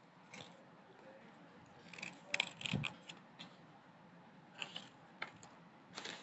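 Paper being handled: short, scattered rustles and crinkles from folded paper sheets and a paper package, the loudest cluster about two and a half seconds in.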